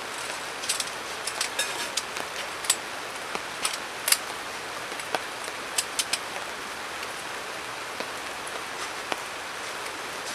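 Steady rain falling, with scattered sharp clicks and taps from the folding camp cot's metal leg tubes being handled and fitted together, most of them in the first half.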